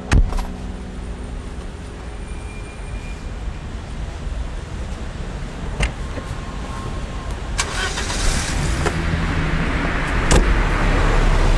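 A car running and driving off: a steady low engine and road rumble, with a few sharp clicks or knocks and a hiss of noise that grows louder near the end.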